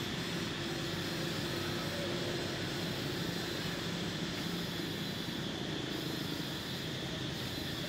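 Steady drone of a distant engine running, with a low hum and a faint high hiss over it.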